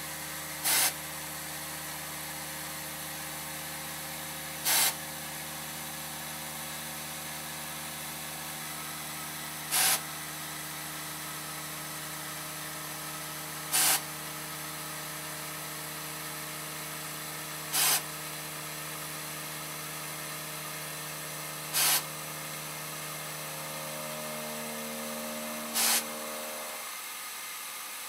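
Milling spindle of a Voortman beam-processing machine running, a steady whine of several tones, as its cutter mills a bevel into a steel beam flange. A short loud burst comes about every four seconds, and the whine stops shortly before the end.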